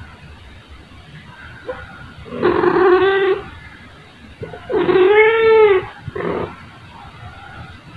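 A domestic cat meowing: two drawn-out meows a little over a second apart, the second rising and then falling in pitch, followed by a short, softer call.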